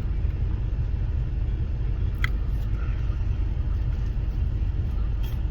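Steady low rumble of a car's cabin, with one short sharp click a little over two seconds in.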